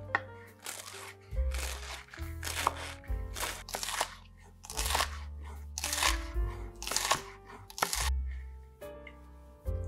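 Chef's knife crunching through napa cabbage onto a wooden cutting board, shredding it in quick repeated cuts about two a second, which stop near the end. Background music plays underneath.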